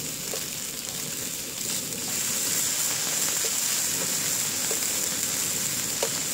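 Slices of Spam sizzling in a nonstick frying pan: a steady hiss that grows louder about two seconds in. A few light clicks come from metal tongs as the slices are turned.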